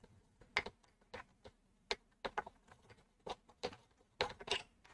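Light, irregular clicks and taps of fingers handling the plastic housing of a Sentro 48-type knitting machine, working at the screws still left in its base.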